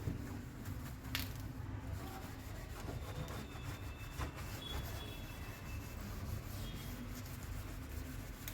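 Hand scrubbing of a fridge surface, a steady rubbing with a few light knocks.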